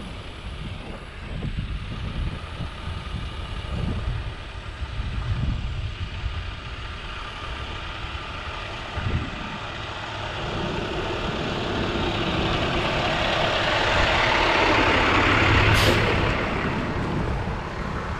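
A large road vehicle growing steadily louder as it draws near, with a short sharp hiss near the end as it is loudest, over wind rumble on the microphone.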